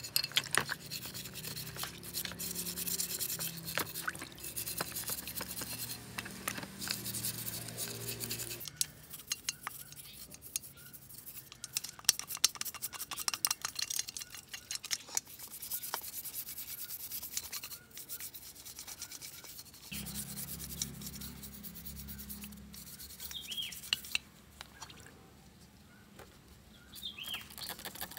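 Abrasive rubbing and scraping on a part of an old two-stroke engine under restoration: many quick strokes in a dense run, easing off near the end.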